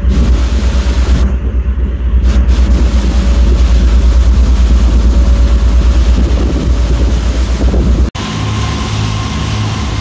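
Motorboat engine running under way, a loud, fast low throb under a hiss of wind and water. About eight seconds in it cuts off abruptly and gives way to a somewhat quieter engine sound with a slower low pulse.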